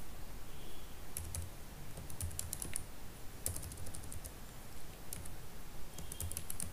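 Computer keyboard being typed on slowly: scattered single keystrokes with uneven pauses between them.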